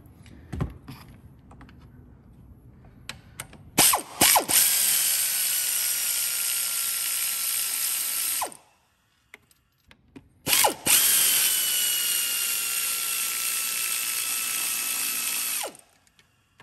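Cordless electric ratchet with an extension undoing two 12 mm intake-manifold bolts. A few short bursts lead into two runs of about four to five seconds each, separated by a brief pause. In each run the motor whine drops slightly in pitch.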